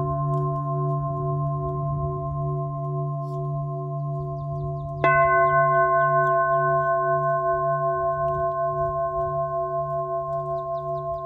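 Crystal singing bowl, a Moldavite bowl in the key of D, ringing with a slow pulsing waver. It is struck once with its mallet about five seconds in, swells louder, then slowly fades.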